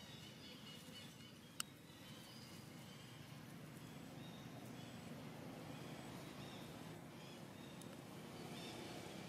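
Faint outdoor background noise with a single sharp click about a second and a half in.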